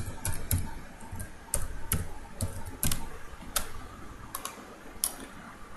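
Computer keyboard keys pressed one at a time as a word is typed slowly: about a dozen separate sharp clicks, unevenly spaced.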